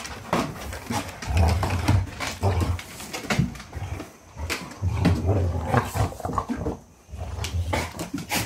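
Golden retrievers play-growling in several low rumbling bouts as an adult dog mouths and wrestles a puppy, with paper rustling and claws scraping through it.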